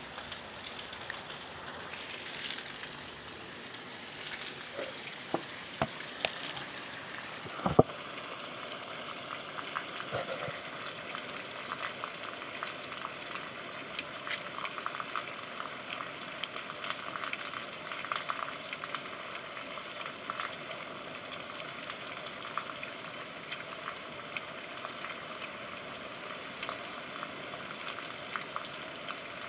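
Steady rain falling, a dense crackling patter of drops on a surface. A few louder drips or knocks come about a quarter of the way through.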